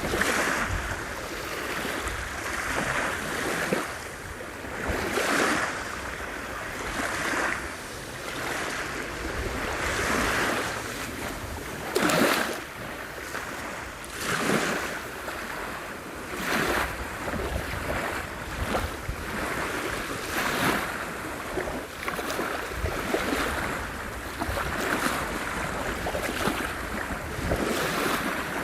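Black Sea surf breaking on the shore, a new wave washing in every two seconds or so, with strong wind rumbling on the microphone.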